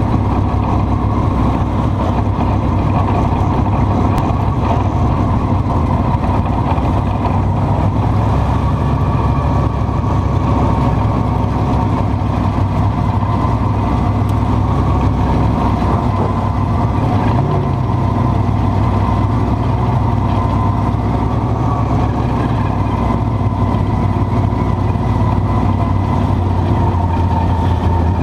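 Dirt-track race car engine running steadily at low revs, heard from inside the cockpit as the car rolls slowly in line behind other race cars.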